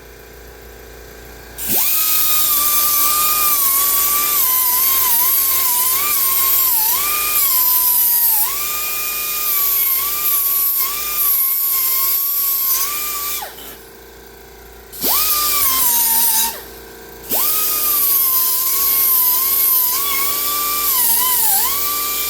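Electric grinder running at high speed with a high-pitched whine, grinding the edge of a steel lawnmower blade; the pitch dips each time the wheel is pressed into the metal. It starts about two seconds in and runs in three spells, with two short pauses in the second half.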